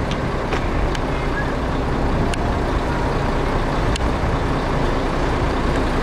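Steady, loud low rumble of outdoor background noise, with a few faint ticks.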